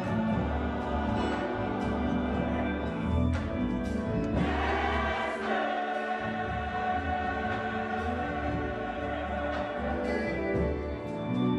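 Gospel choir singing in harmony with long held notes over a low instrumental bass line. The bass drops out briefly partway through.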